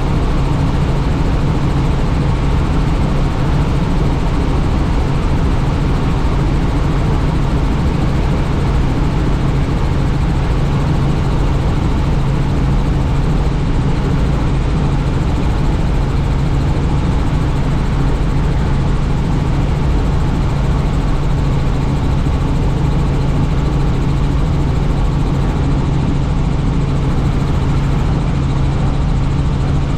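Helicopter in flight heard from on board: a loud, steady drone of rotor and engine with a strong low hum and a rush of noise over it.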